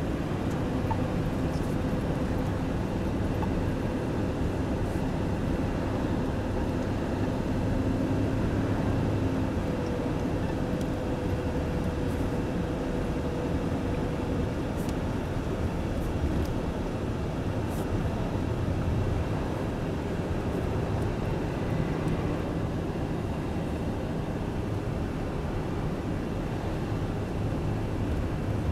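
Steady road noise of a car driving, heard from inside the cabin, with a faint steady hum under it.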